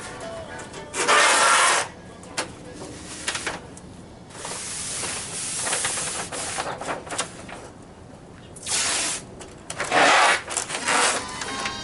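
Hand rubbing strokes across a panel surface, likely sanding or wiping in paint prep. The loudest run of strokes comes about a second in and again near the end, with quieter strokes in between.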